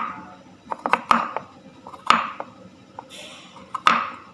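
Knife chopping fresh turmeric rhizome into small pieces on a cutting board: sharp knocks, the louder ones about once a second, with lighter taps between.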